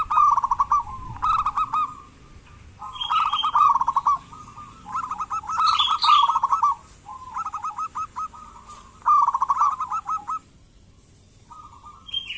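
Zebra dove (perkutut) cooing in a string of short, rapid rolling phrases, about seven in a row with brief pauses between them.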